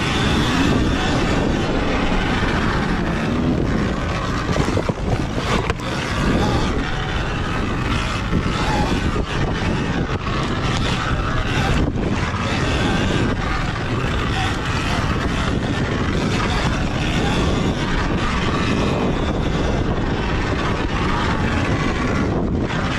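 Onboard sound of a Sur-Ron Ultra Bee electric dirt bike ridden at pace over a dirt track: steady wind rush on the microphone with drivetrain and knobby-tyre noise and no engine note, and a few short knocks from bumps in the track.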